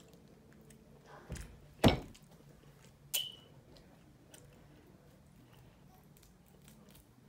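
Quiet eating at a table: a few sharp knocks, the loudest about two seconds in, and a short clink with a brief ring about a second later, among faint clicks of food and plate handling.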